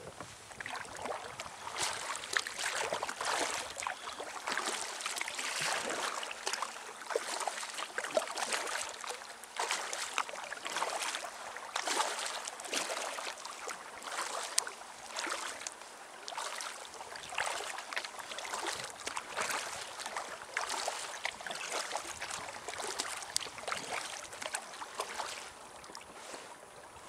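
Water splashing and trickling around a kayak moving across a lake, in repeated splashes about once a second.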